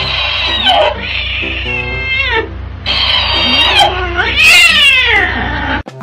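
A cat yowling in angry, drawn-out cries back and forth with a talking hamster toy that repeats each cry in a higher, squeaky voice; four long cries, the last one rising and falling. Background music plays underneath and cuts off just before the end.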